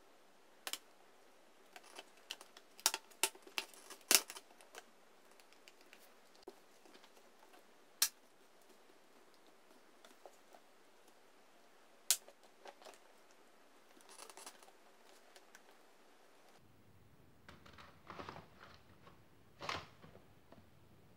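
Plastic clips of a laptop's bottom cover snapping into place as the cover is pressed home, with handling knocks and scrapes of the plastic case: an irregular scatter of sharp clicks, several close together a few seconds in, with louder knocks near the end.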